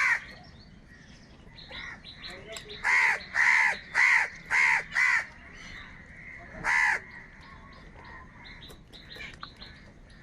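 Crows cawing: a quick run of five loud, harsh caws about three seconds in and a single caw a couple of seconds later, over fainter calls from more birds around them.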